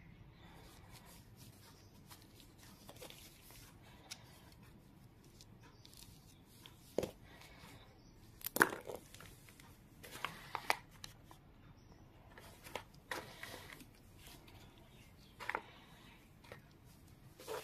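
Handling noises of small plastic craft buttons in a gloved hand: scattered rustles with a few sharp taps and clicks.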